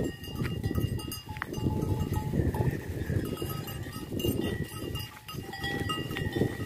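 Bells on a walking goat herd clanking irregularly, with short ringing tones coming and going, over a low scuffling noise of the animals moving.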